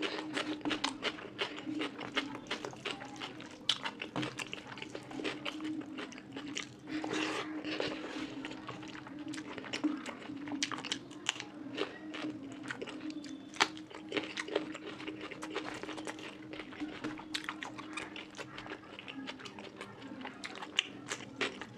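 Close-miked chewing and biting of a meal of fish curry with rice: wet mouth sounds with many quick smacks and clicks, over a steady low hum.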